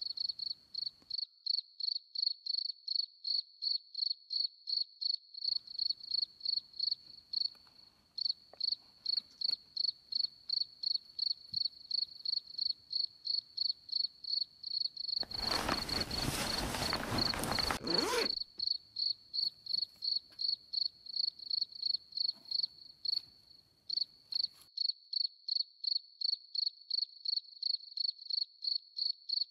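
Cricket chirping at an even pace, about three chirps a second, breaking off briefly twice. Midway a loud burst of rushing noise lasts about three seconds.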